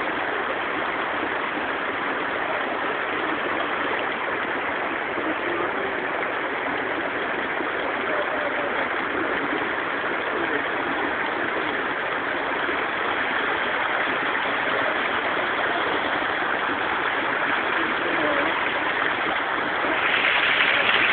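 River water rushing: a steady, even rush that gets a little louder near the end.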